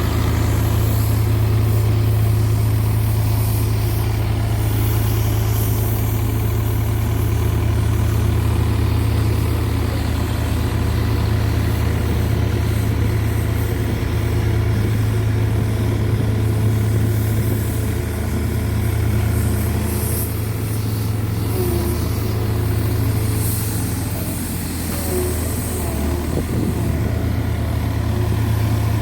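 Heavy diesel engine of a road roller running steadily, with a deep hum, dipping slightly about three-quarters of the way through.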